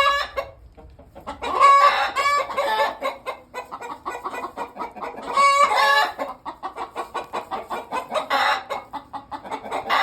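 Chickens in a coop in an uproar: loud squawks twice, then a rapid run of clucking, about four or five a second. It is the flock's alarm racket at a dog coming into the coop.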